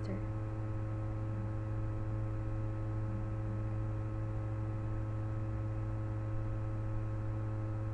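Steady electrical mains hum in the recording: a constant low drone with several fainter steady tones above it and a light hiss, unchanging throughout.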